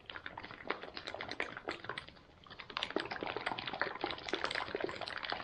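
A freeze-dried smoothie pouch with water and banana smoothie powder inside being shaken by hand to mix it: liquid sloshing and the pouch crinkling in quick irregular ticks, with a short lull about two seconds in.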